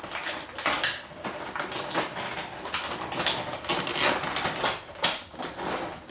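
Cardboard miniature boxes and their packaging being handled: a busy run of light clicks, scrapes and rustles as the boxes are moved and opened.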